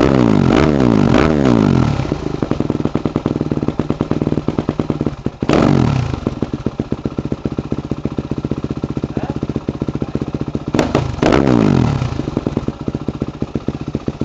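Yamaha YZ250F four-stroke single-cylinder motocross engine being free-revved. It gives quick throttle blips that fall back to a pulsing idle: revs settling near the start, one blip about five seconds in, and a double blip around eleven seconds.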